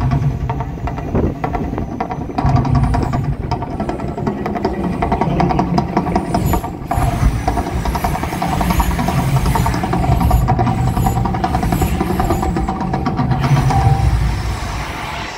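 Mirage volcano show erupting: a loud, continuous deep rumble from the show's effects and sound system as gas-fired flames shoot up from the peak and the lagoon.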